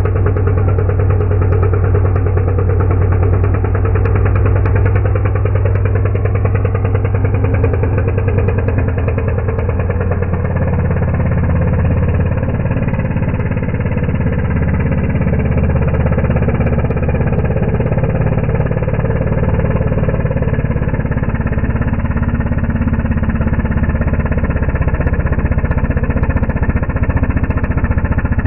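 Two-stroke petrol chainsaw running under load as it cuts into a log, heard as a deep, steady engine drone that drifts slightly in pitch.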